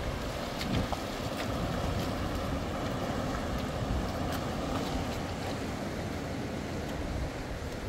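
Steady rushing of flowing river water, with a few faint clicks over it.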